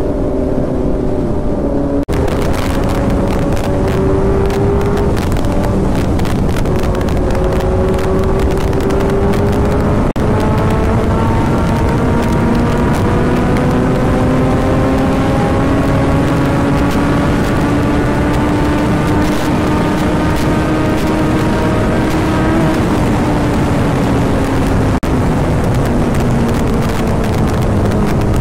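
Kawasaki Z900's inline-four engine pulling hard at high speed, its pitch climbing steadily for about twenty seconds, then falling as the throttle is eased. Heavy wind rush on the microphone runs under it throughout.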